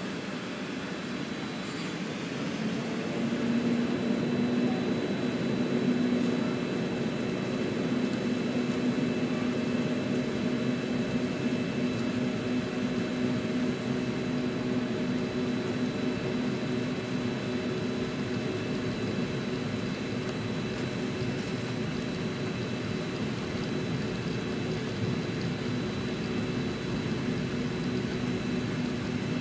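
Airliner jet engines heard from inside the passenger cabin, spooling up to takeoff thrust a couple of seconds in. They then hold a steady drone with a high whine through the takeoff roll.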